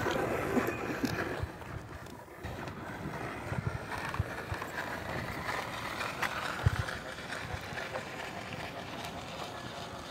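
Plastic water bottle taped against a child's bicycle rear wheel, rattling on the turning spokes as a makeshift motorcycle noise. The rattle is loudest in the first second or so, then carries on fainter as the bike rides away.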